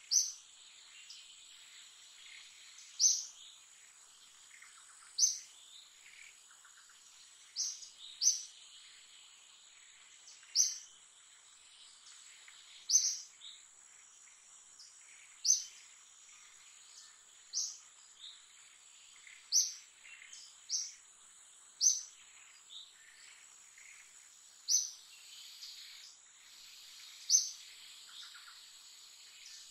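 A bird giving a short, sharp, high call about every two to three seconds, sometimes twice in quick succession, over a steady high-pitched insect drone.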